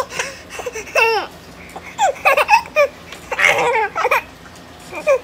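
Twin babies laughing at each other in several short, high-pitched bursts.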